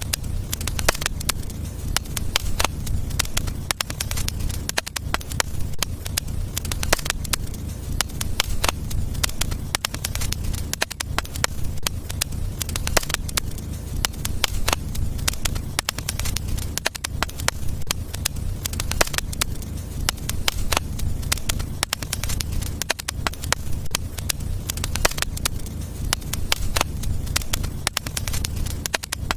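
Fire burning in a fireplace, crackling steadily with many irregular pops and snaps over a low, steady rumble.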